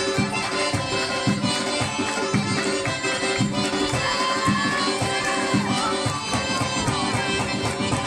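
Lezginka dance music: a drum beating a quick, driving rhythm under a held melody line.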